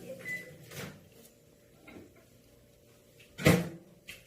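Kittens knocking and scrabbling at a cardboard box: a few scattered light knocks and scrapes, with one louder thump about three and a half seconds in.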